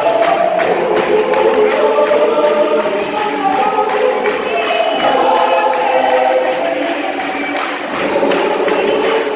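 Gospel choir singing a hymn in several parts, the voices held and moving together in harmony over a steady rhythmic beat.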